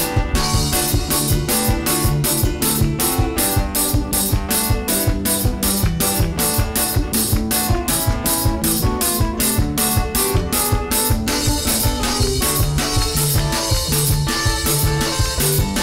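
Upbeat gospel worship music from a church praise band, with a drum kit keeping a steady beat under keyboard.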